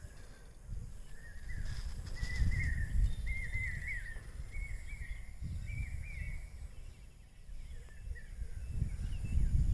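A bird calling in a quick run of short, repeated chirps from about half a second to six seconds in, with a few fainter ones later, over a low, uneven rumble.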